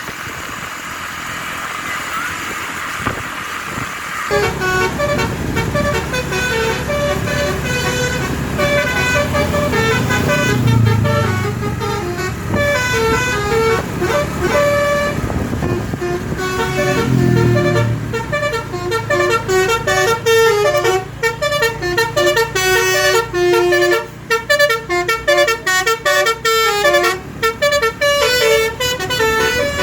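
Bus telolet horn, a V4 melody module driving DAV air horns, playing a fast tune of short stepped notes that starts about four seconds in and turns choppy and staccato in the second half, over a low engine rumble.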